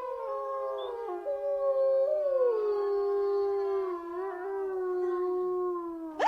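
Several long howls overlapping one another, each holding its pitch and then sliding slowly down or up, in a haunted-house horror sound effect.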